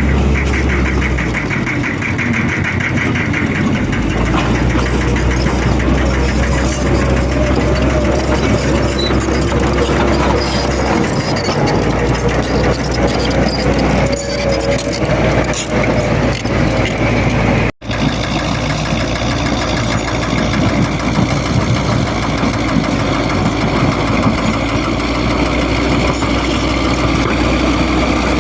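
Heavy road-construction machinery engine running steadily with a continuous low rumble; the sound cuts out for an instant a little past the middle, then carries on.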